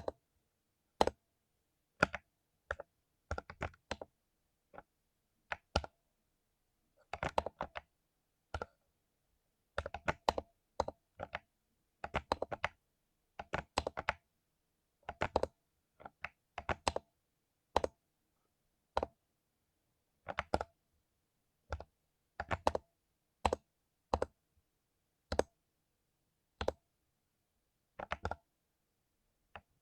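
Mechanical keyboard with lubed Cherry MX Silver linear switches being typed on, in short irregular bursts of keystrokes with brief pauses between them.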